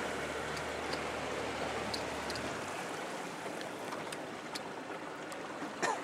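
Water lapping and splashing around a small boat, with a low steady hum underneath that stops about two and a half seconds in. A brief louder knock or splash comes near the end.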